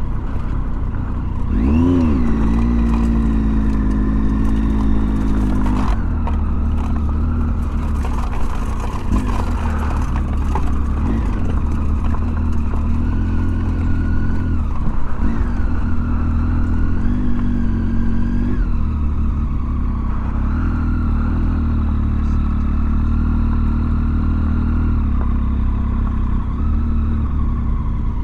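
Triumph Tiger 800's three-cylinder engine running on the move, its pitch rising and falling with throttle and gear changes, over a heavy steady rumble of wind on the microphone.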